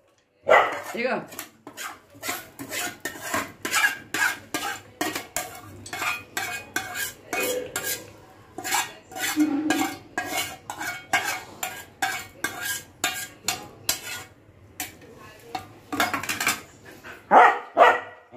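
A metal spoon clinking and scraping against a pan or bowl in a quick run of knocks, about two or three a second, as cooked tomato mixture is scooped out.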